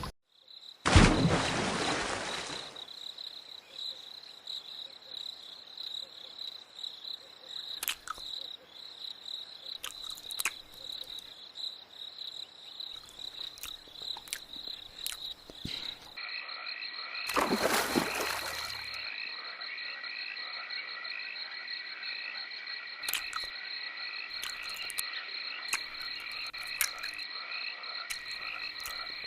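A steady, high-pitched trilling chorus of calling animals. About halfway through it changes to a pulsing chorus at two pitches. A loud rush of noise comes about a second in and again briefly just past the middle, with scattered clicks between.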